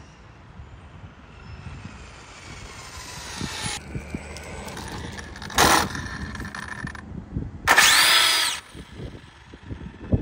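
Arrma Limitless RC car's brushless electric motor whining, rising in pitch as the car drives up. There is a short loud burst about five and a half seconds in, then the loudest part, a high whine that rises and falls for about a second near eight seconds in, as the car launches away hard.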